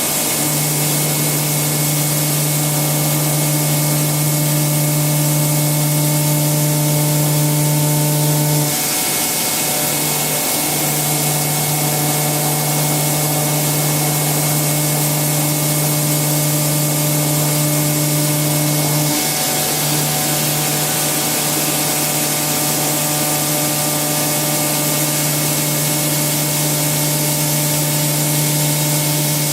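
Milling machine cutting metal with an indexable-insert milling cutter: a steady hum with a hiss over it, which breaks and changes briefly about 9 and again about 19 seconds in.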